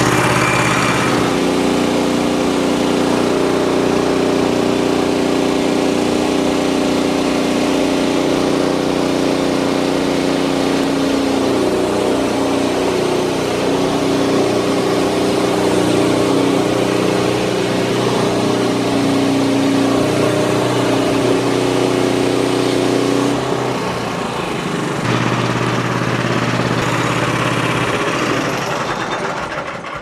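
Small gasoline engine of a Frontier portable band sawmill running at working speed while the bandsaw blade cuts a board off a large red oak log. The engine note shifts about a second in and again after about 23 seconds, and the sound dies away near the end.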